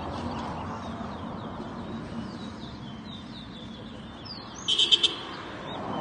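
Caged towa-towa (chestnut-bellied seed finch) singing: a run of quick, falling high chirps over steady background noise, with a short, much louder burst of high sound about five seconds in.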